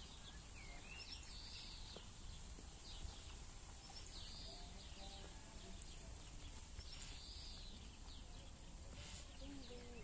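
Faint birdsong from the trees: short chirps and calls from several birds come and go throughout, over a steady low rumble.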